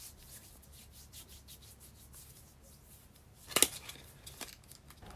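Faint rustling and rubbing of hands handling cosmetic packaging: tissue paper and a cardboard box. One sharp click comes about three and a half seconds in, followed by a couple of lighter ticks.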